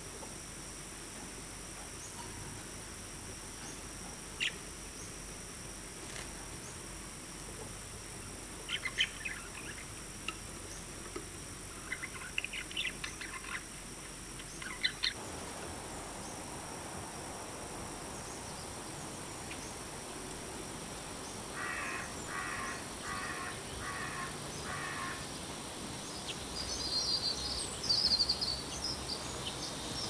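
Budgerigars give a few short, scattered chirps over a steady high hiss. About halfway through the background changes, and a common starling gives a run of five short, evenly spaced calls, then a burst of high chattering near the end.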